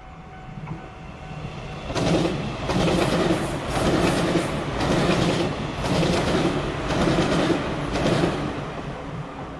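Train passing through a level crossing, its wheels clacking over the rail joints in a quick repeating beat. It swells about two seconds in and fades away near the end.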